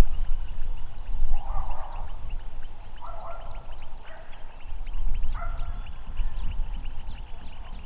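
Wetland animals: a harsh call about half a second long repeats four times, roughly a second or so apart, over a steady patter of short high chirps. A low wind rumble on the microphone is strongest at the start.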